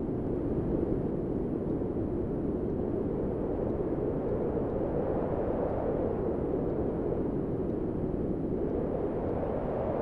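Synthesiser imitation of high wind: filtered noise rushing at an even level, its pitch slowly rising and falling as the filter cut-off is swept.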